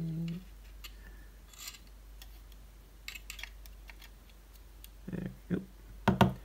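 Fine metal tweezers clicking and scraping against a 3-inch floppy disk drive's mechanism as pieces of its decomposed rubber drive belt are picked out. There are a few faint ticks, then louder short knocks about five and six seconds in.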